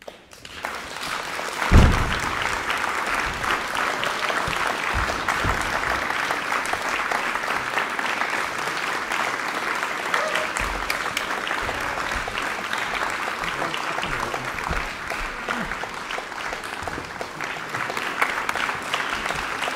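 Concert audience applauding, rising out of near silence within about a second and then steady, with a loud low thump about two seconds in.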